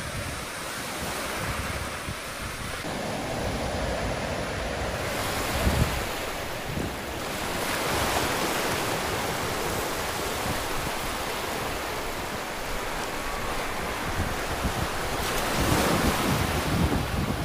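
Sea surf breaking and washing up the shore in a steady rush, with wind buffeting the microphone in gusts, strongest about six seconds in and near the end.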